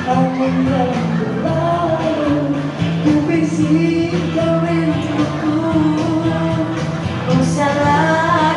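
Pop song sung live into a microphone over music accompaniment through a PA, a male singer with a female voice joining near the end.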